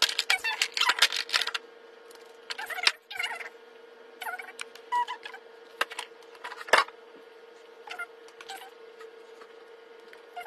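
Sped-up clicks, taps and rattles of makeup containers and a plastic makeup case being handled, with one sharper click about two-thirds of the way through. A faint steady hum runs underneath.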